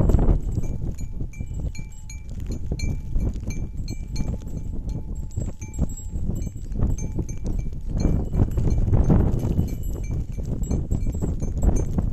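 Small bells on a reindeer herd clinking and tinkling irregularly as the animals graze and move, over a constant low rumble.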